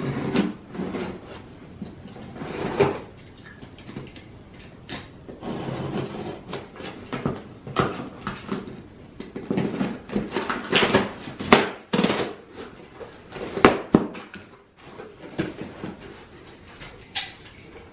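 Utility knife slicing packing tape on a cardboard box, then the cardboard flaps being pulled open and rustled: irregular scrapes and rustles with a few sharper knocks in the second half.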